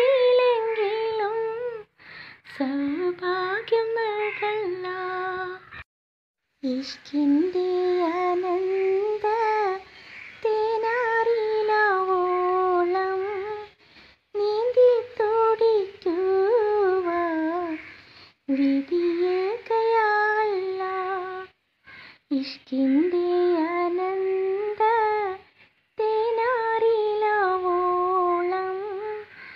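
A single female voice singing a Malayalam Madh song in praise of the Prophet, unaccompanied, in ornamented phrases of a few seconds each with short breaks between them.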